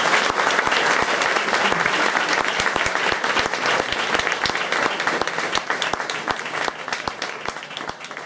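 Audience applauding at the end of a tune, the clapping thinning out and dying away near the end.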